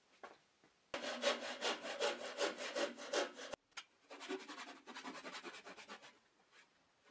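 Hand saw cutting wood in quick strokes, about five a second, in two runs; the first stops abruptly about three and a half seconds in.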